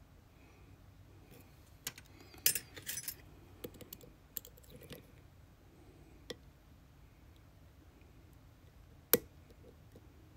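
Small metal parts of a padlock and lock-picking tools being handled: scattered clicks and a brief metallic jingle about two and a half seconds in, then one sharp click near the end.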